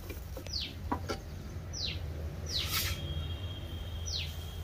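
A bird calling: a short falling whistled note, four times about a second apart, with a couple of light knocks about a second in.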